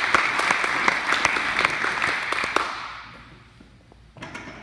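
Applause, a dense patter of many people clapping, fading out about three seconds in. A short thump comes near the end.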